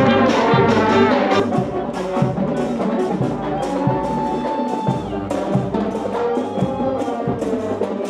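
Marching band playing as it passes: brass, saxophones and clarinets over a sousaphone bass line, with a steady drum beat.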